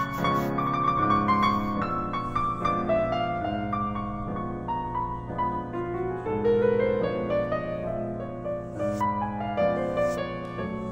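Background piano music: sustained notes over a low repeating accompaniment.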